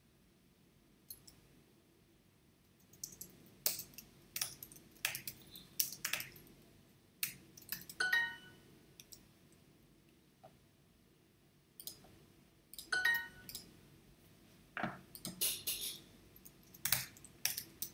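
Computer keyboard typing in irregular runs of clicks, with a short electronic chime about eight seconds in: Duolingo's correct-answer sound.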